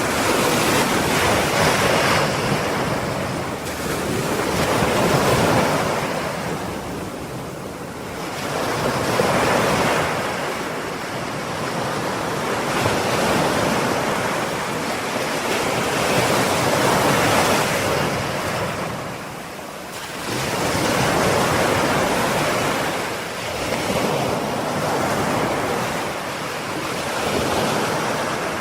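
Ocean waves breaking and washing on a shore, the surf swelling and ebbing every few seconds.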